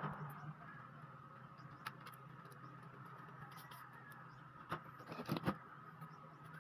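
Faint steady background hum with light clicks and taps from handling a laptop's parts: a single click about two seconds in, and a short cluster of clicks about five seconds in.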